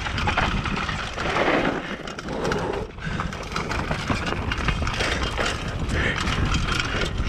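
Mountain bike descending a dry dirt trail: tyres rolling and crunching over dirt, with a dense, irregular clatter of the bike's chain and parts over bumps and a steady low rumble of wind on the microphone.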